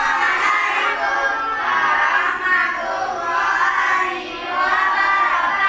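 A group of children singing together in unison, loud and sustained, with a short dip a little past the middle.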